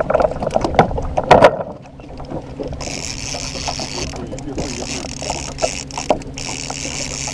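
Loud knocking and clatter as a trolling rod is pulled from its rod holder, then the fishing reel being cranked against a fish, a steady mechanical clicking whir that pauses twice briefly. A steady low boat-motor hum runs underneath.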